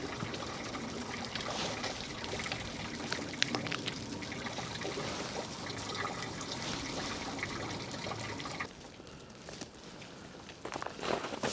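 Meltwater trickling and dripping at a frozen waterfall, a steady wash with scattered small sharp ticks. About nine seconds in it drops suddenly quieter.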